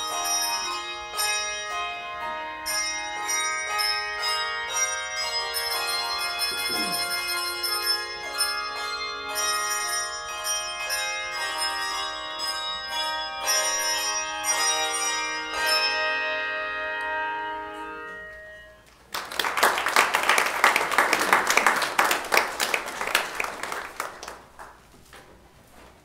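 A handbell choir ringing a piece, chords of bells sounding and overlapping, with the last notes dying away about eighteen seconds in. Then the congregation applauds for about five seconds, louder than the bells.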